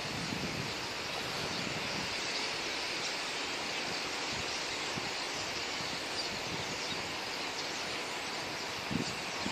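A large flock of common starlings settling into a roost, their massed chatter blending into a steady, even din.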